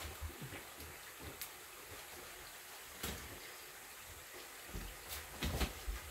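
Quiet room tone with a few light clicks and knocks scattered through it, more of them close together near the end.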